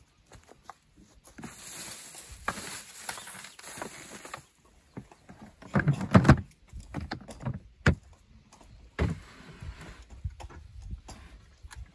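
Hard plastic storage box being packed: rustling of contents, then the lid pressed down onto the box with several loud knocks about halfway through, followed by a sharp click and further plastic knocks as it is handled.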